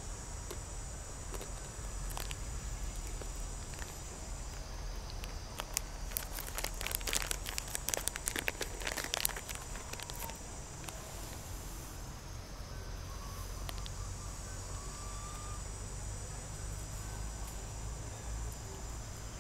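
Steady high-pitched drone of insects, thinning for a few seconds and coming back, with a cluster of dry crackles and rustles of leaves and twigs about six to nine seconds in, the loudest part. A low steady rumble runs underneath.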